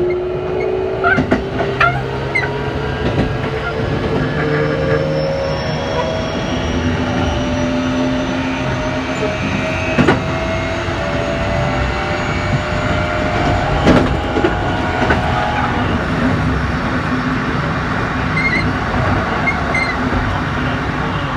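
Keikyu New 1000 series train's Toshiba IGBT-VVVF inverter and traction motors whining as the train accelerates, several tones climbing steadily in pitch over about fifteen seconds, over rail rumble with a few sharp clicks from the track.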